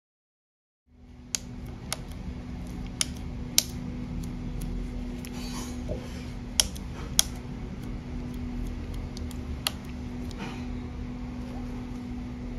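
Sharp plastic clicks, about eight scattered over ten seconds, as a Vivo Y22 phone's new display assembly is pressed and snapped into its frame, over a steady low hum. The sound starts about a second in.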